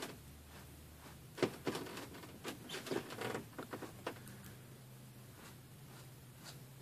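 Faint scratchy brushing of a fan brush dragged across the canvas: a handful of short strokes in the first half, over a faint low hum.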